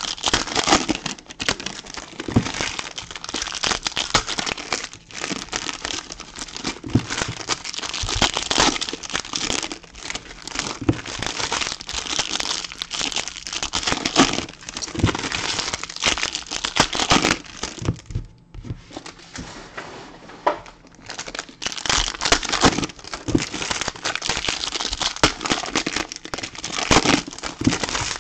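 Trading card pack wrappers being torn open and crumpled by hand: a dense, continuous crinkling and tearing, with a short pause about two-thirds of the way through.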